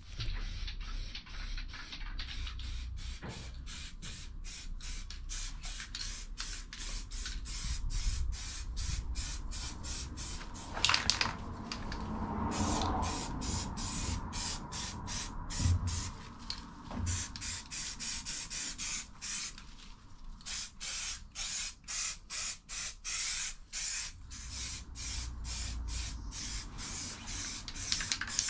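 Aerosol spray-paint can spraying a motorcycle exhaust pipe in many short hissing bursts.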